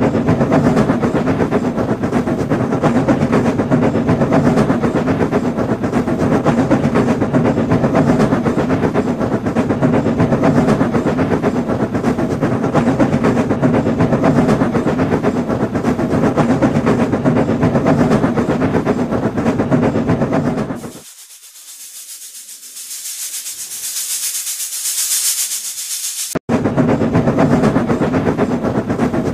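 Music mixed with animated steam-locomotive running sounds. About three-quarters of the way through, the rest drops out for about five seconds, leaving a high hiss that swells and then stops suddenly.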